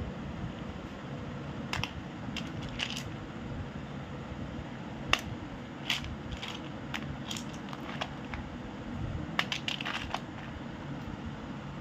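Dry pieces of roasted clay clicking and clinking against each other and the plate as fingers stir and sort through the pile, in scattered small clusters with a busier run near the end, over a steady low background noise.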